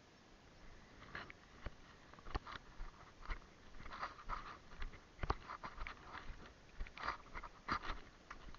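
Irregular crunching and cracking close to the microphone, about a dozen crunches with a few sharper clicks, like dry leaves and twigs breaking under a person moving slowly through undergrowth.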